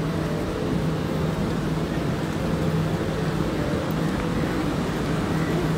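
Steady low hum and rumble of a train standing at a station platform.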